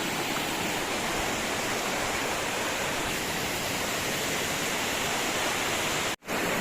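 Waterfall: a steady roar of falling water that cuts out for a moment about six seconds in.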